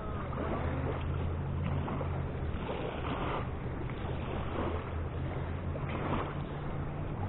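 Wind and flowing river water, heard as a steady rushing noise with a low steady hum underneath.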